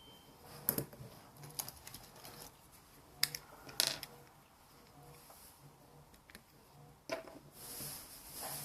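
Household appliance hum, low and pulsing on and off about twice a second, with scattered sharp clicks and knocks, and a soft hiss that swells near the end.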